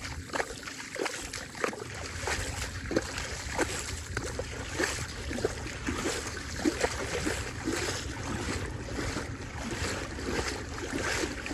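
Footsteps wading through shallow water over a soft, muddy bottom: irregular splashing and sloshing with each stride, over a steady low rumble.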